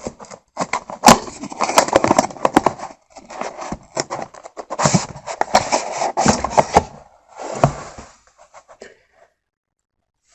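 Retail packaging of a portable drive being opened and handled: rustling with many sharp clicks and snaps, stopping about eight seconds in.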